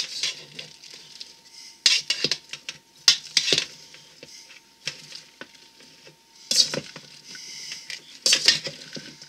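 A metal utensil scraping and clinking against a stainless steel mixing bowl as a salad is tossed, in four or five short clattering bursts with quieter rustling of leaves in between.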